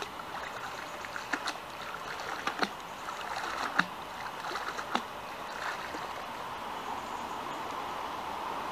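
A fishing magnet on a rope being hauled up through canal water: splashing and sloshing, with four sharp slaps roughly a second apart, over a steady hiss that grows a little near the end.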